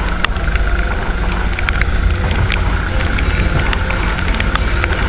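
Wind and rain on an onboard kart camera: a loud, steady low rumble with many sharp ticks of raindrops striking the camera.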